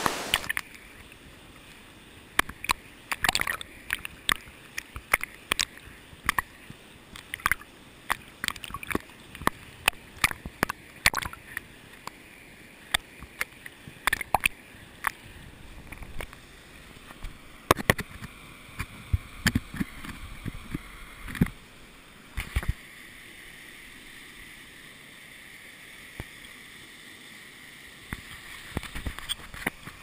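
Waterfall spray and drops striking the camera in irregular sharp taps and splashes, several a second at times, over a steady rush of falling water; the taps thin out for a while after about 23 seconds.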